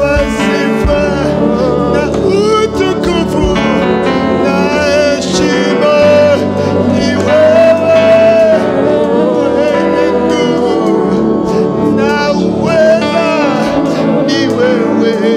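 Live gospel worship song: a male lead vocalist sings into a microphone over musical accompaniment, holding one long high note about seven to eight seconds in.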